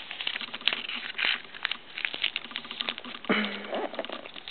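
Origami paper being folded and handled: a run of crisp rustles, crackles and small taps as a flap is tucked into the pocket of a paper cup. A short murmur of voice comes about three seconds in.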